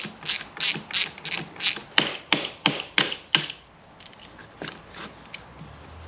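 A ratcheting mechanism worked in quick strokes, about three rasps a second, then a few lighter clicks after about three and a half seconds.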